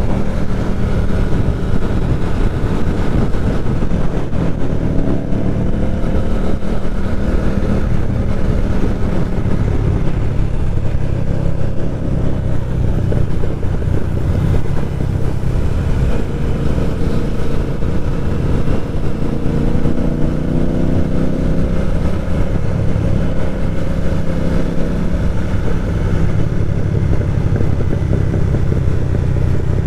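Motorcycle engine and exhaust under way on the road, the revs climbing several times as it accelerates through the gears, over steady wind and road rumble.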